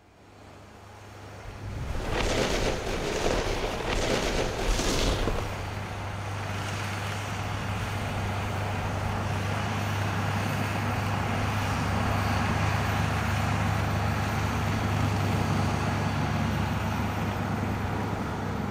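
Tracked snow groomer (snowcat) engine running steadily with a low hum, fading in over the first two seconds, while the front blade pushes a mound of snow. A louder rushing noise rises from about two seconds in and eases off near five seconds.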